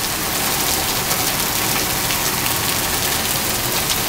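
Pouring rain hitting a wet paved driveway and garden plants: a steady hiss with scattered ticks of single drops.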